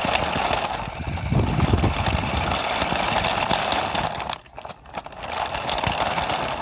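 Small RC car running, its electric motor and gears whirring as it drives. It cuts out briefly about four and a half seconds in, then starts up again.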